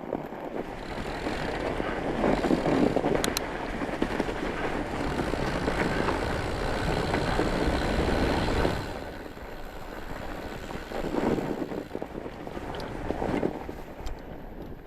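Fat bike with chained tyres rolling over a snowy trail: a steady rush of tyre noise mixed with wind on the microphone. It is louder for the first nine seconds, then eases off and comes back in swells.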